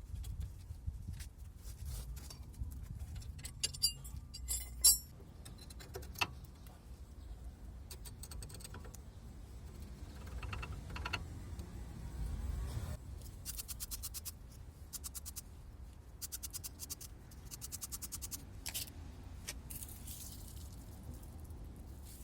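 Hand tools clinking and clicking against metal car parts in short runs, with rapid clicking in the second half, over a steady low hum.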